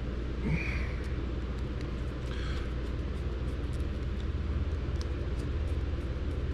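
A steady low rumble with no clear pattern, with a few faint clicks and rustles from handling a small plastic servo and its wires, one near the start and one about two and a half seconds in.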